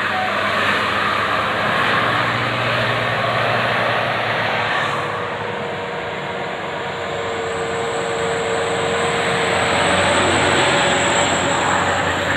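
Bus engine and tyre noise running close by, a steady rush that dips slightly midway and swells again later, with no horn melody sounding.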